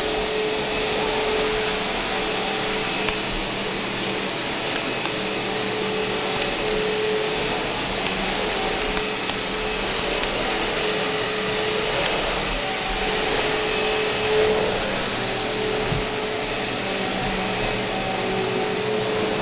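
Vacuum cleaner running steadily: an even rushing noise with a faint steady whine.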